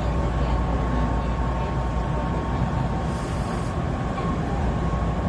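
Train running, heard from the front of the leading car: a steady low rumble of wheels on rail with a faint steady whine, and a brief high hiss about three seconds in.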